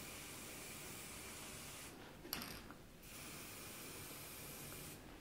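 Spray-paint can spraying faintly in two hisses of about two seconds each, with a short break and a single click between them.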